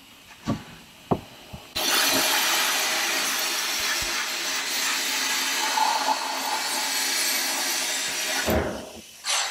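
Sandblast cabinet blasting: a loud, steady hiss of compressed air and abrasive media starts about two seconds in and cuts off shortly before the end. A few knocks come just before it starts. The blasting is roughening a welded metal anchor-boom part so that paint will stick.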